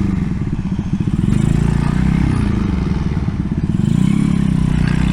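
Mini bike's 140cc single-cylinder four-stroke engine running through a stainless steel side-exit exhaust while under way. The revs drop just after the start, hold, dip again around the middle, then climb near the end.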